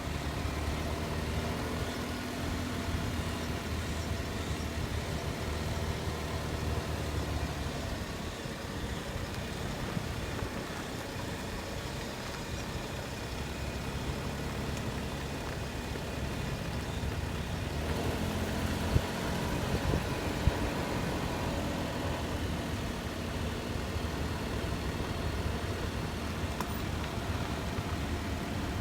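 Daihatsu Tanto L375S on the move: its 660 cc three-cylinder engine running, its pitch rising and falling, with two short knocks a little past the middle. No clicking from the drive shafts' outer constant-velocity joints is heard, the knocking having been cured by packing them with Mori Joint Grease.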